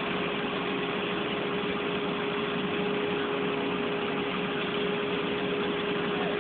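Steady machine hum with one constant tone over an even hiss, unchanging throughout.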